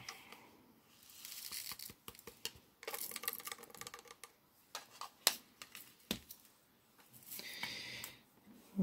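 Quiet handling of diamond-painting supplies: plastic rustling and rattling in a few short spells, with scattered light clicks and taps as containers of diamond-painting drills and a plastic drill tray are picked up and set down.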